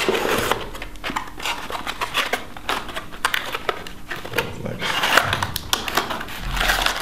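Cardboard packaging being handled: a folded cardboard insert scraped and pulled out of its box, with rustling, scraping and many small knocks and clicks.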